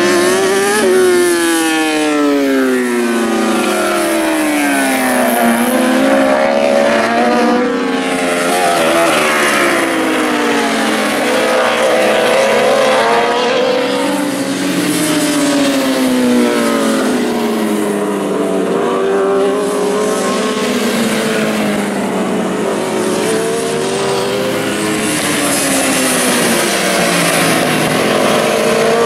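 Several 1000cc superbikes racing past at high revs, their engine notes overlapping and repeatedly rising and falling in pitch as the riders accelerate out of corners and brake into them.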